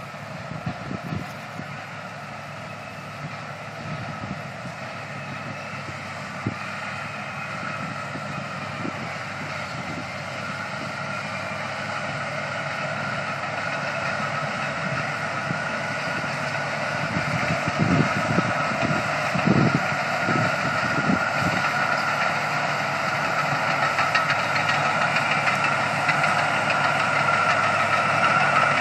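Caterpillar D7 bulldozer's diesel engine running under load as the dozer pushes through bush, growing steadily louder as it comes closer. A few heavy knocks and cracks come about two-thirds of the way in.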